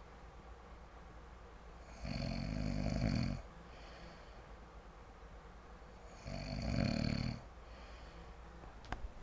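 A man snoring in his sleep: two long snores about four seconds apart, each lasting over a second, with quiet breathing between them.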